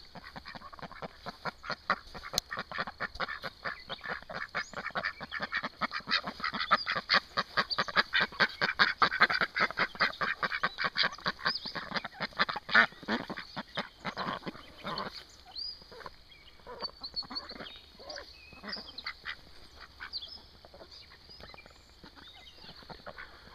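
Backyard chickens clucking and squawking in a dense run of short calls that thins out after the middle, with a few high chirps later on.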